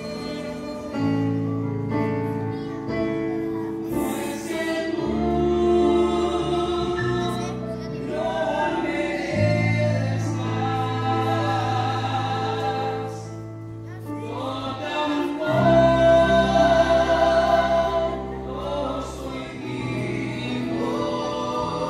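Mixed choir singing with acoustic guitar accompaniment, holding long chords that change every few seconds.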